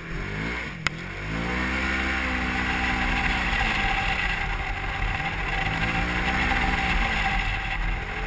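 Polaris RZR XP 1000 side-by-side's parallel-twin engine heard from inside the cab, its pitch climbing and dropping twice as it is driven, under a steady rush of wind. A single sharp click about a second in.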